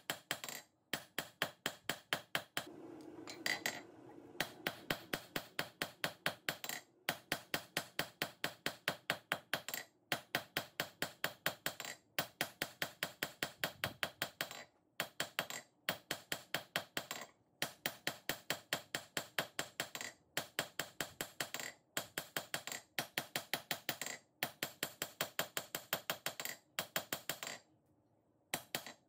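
Hand hammer striking a red-hot 3/8-inch square mild steel bar on an anvil, drawing out a long square taper: a steady run of quick blows, about four a second, broken by a few short pauses.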